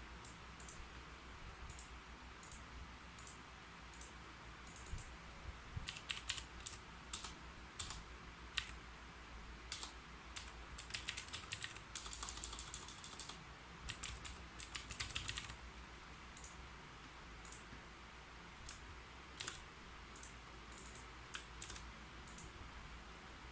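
Typing on a keyboard: scattered single key clicks at first, then a quick, busy run of keystrokes for about ten seconds, thinning back to occasional taps near the end.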